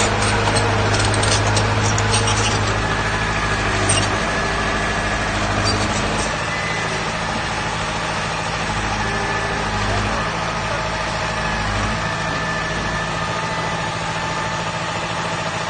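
Heavy diesel earthmoving machine engine running at a steady pitch, its low note easing slightly around six seconds in.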